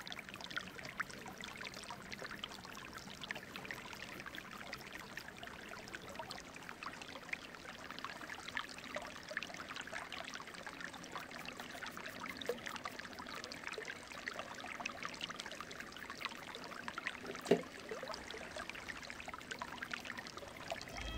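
Paintbrush bristles scratching and dabbing flaky white primer onto a hand-made pumpkin, a faint dense run of small scratches and taps. One sharper knock comes about seventeen seconds in.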